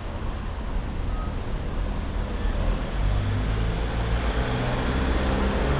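A motor vehicle's engine running close by over a low, uneven rumble, its engine note coming in more strongly about halfway through.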